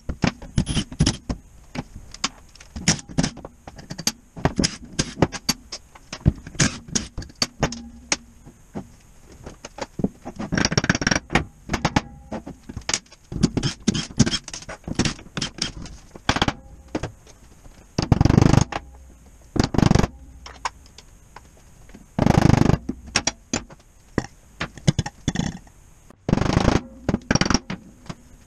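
Cordless impact wrench hammering bolts loose on a Midland air compressor in several short bursts, amid clinks and knocks of bolts, parts and tools set down on a steel workbench.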